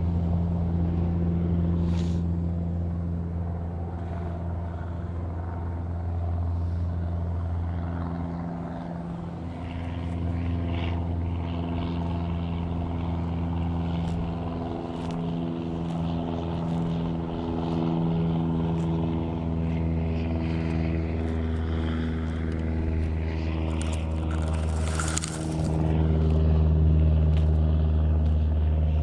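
An engine running steadily, a low hum whose pitch drifts slightly up and down, with a few faint clicks over it.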